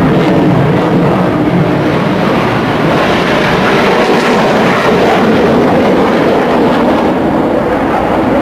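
Continuous roar of military jet aircraft flying low overhead, growing a little brighter around the middle.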